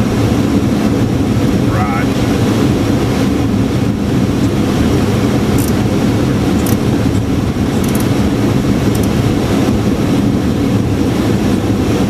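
Steady cockpit noise of an airliner on an instrument approach: an even rush of airflow and engine noise.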